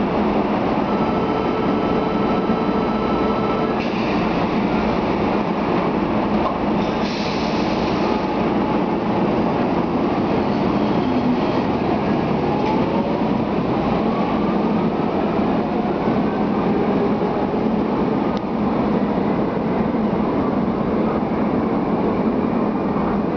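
Caracas Metro train pulling out of a station under a steady din of rail noise. A steady tone sounds for about three seconds near the start, and from about twelve seconds in a whine rises in pitch as the train's motors speed it away.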